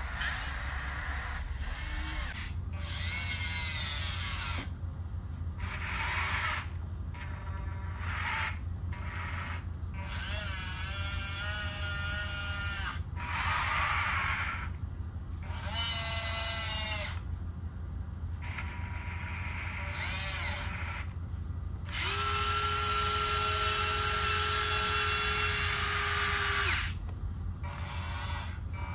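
Huina 1583 RC wheel loader's electric motors and gearboxes whining in a series of short runs, some rising and falling in pitch. The longest and loudest is a steady whine of about five seconds near the end, over a low steady hum.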